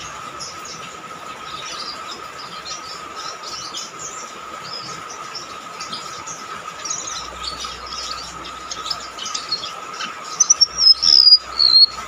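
Golden-bellied gerygone (rametuk laut) singing a shrill run of quick high chirps and twitters, over a steady thin high tone. Near the end comes the loudest part: a few loud whistled notes that slide down in pitch.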